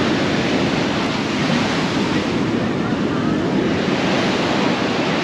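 Ocean surf breaking on a beach, a steady loud rush of waves, with wind buffeting the microphone.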